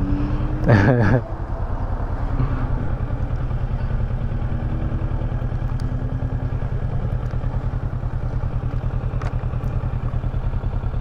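Kawasaki Versys 650's parallel-twin engine idling steadily with an even, low pulse while the motorcycle stands still.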